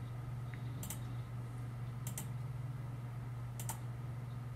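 Computer mouse button clicked three times, about a second and a half apart, each click a quick double tick of press and release, over a steady low hum.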